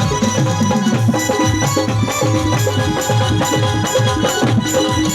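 Live Indian devotional band playing instrumentally through a PA system during a sound check: drums and hand percussion on a steady beat with a shaker-like tick about twice a second, under sustained melodic tones and a bass line.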